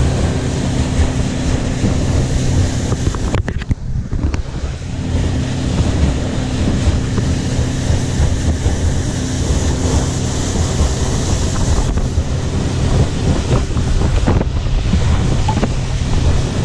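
Boat running at speed: a steady low engine drone under heavy wind buffeting on the microphone and water rushing past the hull.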